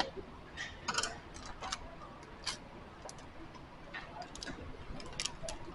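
Faint, irregular clicks and ticks of a small metal motorcycle chain lock (master link) being handled and opened.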